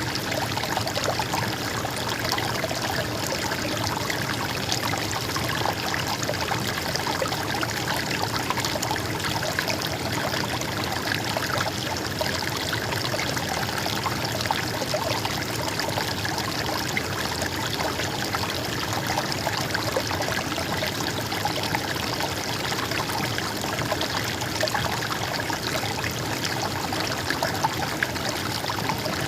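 Stream water flowing and trickling steadily over stones, an even rushing splash with no pauses.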